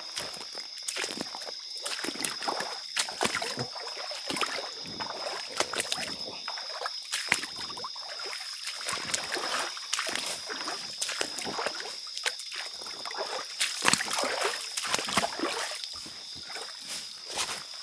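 Splashing and sloshing of someone wading through a shallow creek, with irregular knocks and rustles, over a steady high insect drone.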